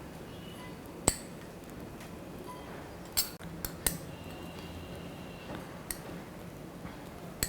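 Light, scattered clinks of a kitchen utensil against a bowl, about six short taps spread over several seconds, over faint room noise.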